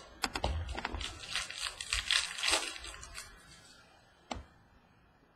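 Trading cards being handled and shuffled by hand: a dense papery rustling with quick clicks for about three seconds, then a single click a little after four seconds in.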